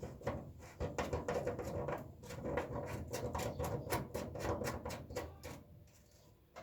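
Rapid clicking and rattling of small parts being handled and fitted back together as the boiler's cleaned filter is refitted, over a steady hum; the clicking stops about five seconds in.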